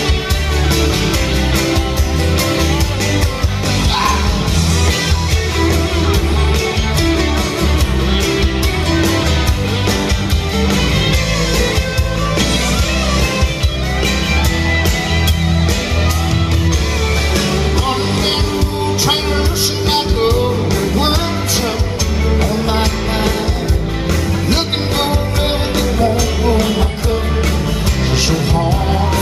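Live band music with a male singer at the microphone, acoustic guitar and a steady beat, heard from the audience.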